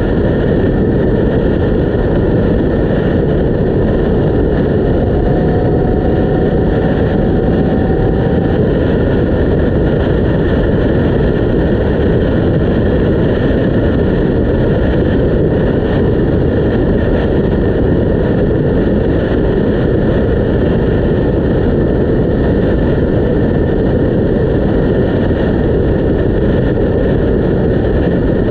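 Yamaha MT-10 inline-four motorcycle riding at a steady cruise, its engine drone buried under a loud, steady rush of wind on the camera microphone.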